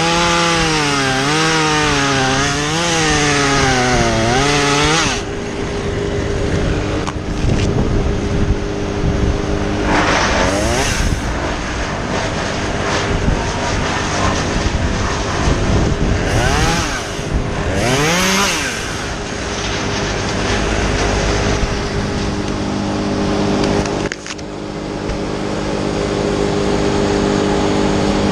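Two-stroke top-handle chainsaw cutting through the trunk for about five seconds, its engine pitch wavering under load. It is then blipped in short revs twice, around ten and seventeen seconds in, over a steady engine hum.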